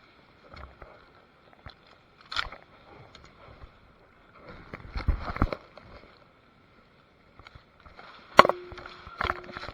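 Rustling and scraping of clothing or gear close to the microphone, with scattered clicks. There is a busier patch about five seconds in and a sharp loud knock near the end, followed by a second one.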